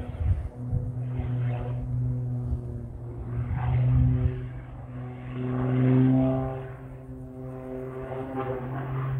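Aerobatic propeller plane's engine and propeller droning overhead during a display routine, swelling and fading as it climbs, rolls and dives, loudest about four and again about six seconds in.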